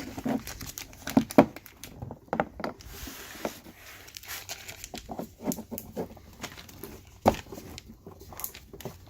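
Irregular plastic clicks, light knocks and rustling as Volvo XC90 park-assist sensors are worked into their clips in the rear bumper cover, with two sharper snaps about a second and a half in and near the end.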